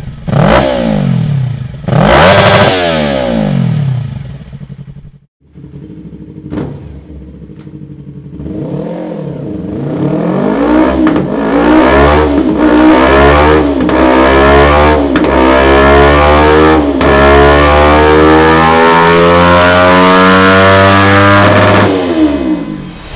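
Yamaha MT-03 parallel-twin engine running through a Dominator full exhaust system. It gives a few quick throttle blips, then after a short break makes one long pull, its note climbing steadily for about twelve seconds before the throttle is closed near the end.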